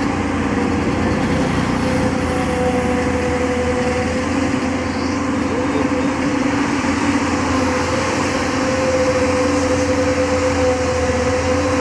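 JCB 3DX backhoe loader's diesel engine running steadily, with a steady whine over the engine noise.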